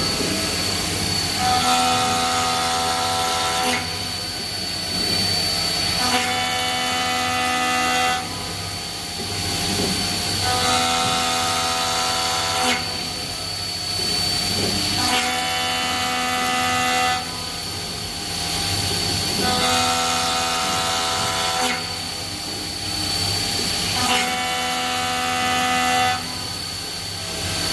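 Milling machine cutting a metal carriage part. The spindle holds a steady high whine throughout. The cutter goes into and out of the cut in a repeating cycle of about four and a half seconds, each pass ringing for about two seconds with several steady tones before dropping back to a rougher noise.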